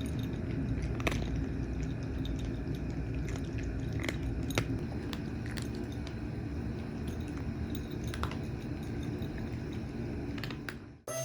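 Cats chewing and crunching food, with a steady crunching noise and scattered small sharp clicks.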